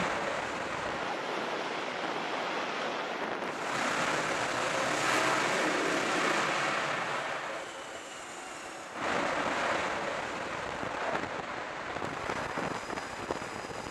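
Jet engine roar on a carrier flight deck during catapult launches: a rushing noise that swells about four seconds in and then fades. It cuts back in abruptly about nine seconds in.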